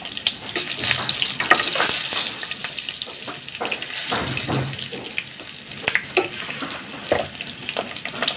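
Cinnamon sizzling in hot cooking oil in a pan: a steady hiss broken by many short, sharp crackles.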